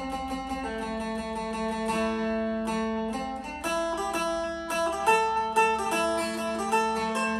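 Electric phin, the Isan plucked lute, being picked: a quick melody of plucked notes over a steady drone string.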